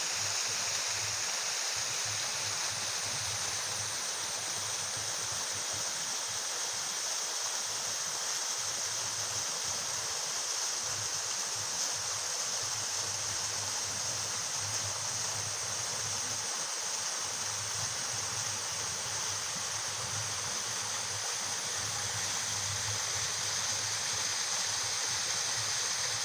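Waterfall: water falling and rushing in a steady, unbroken hiss that stays even throughout.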